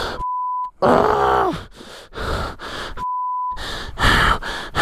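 A hurt dirt-bike rider groaning in pain, then gasping and panting in quick short breaths after landing on his foot peg in a fall. Two short steady censor bleeps cut in, one just after the start and one about three seconds in.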